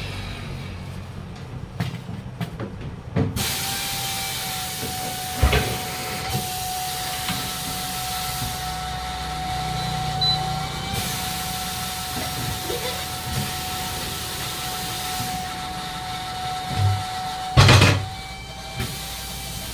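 Compressed air hissing steadily through a 6.00-16 tractor tyre's valve, with a faint steady whistle. The hiss starts about three seconds in and cuts off near the end, and two sharp knocks come along the way.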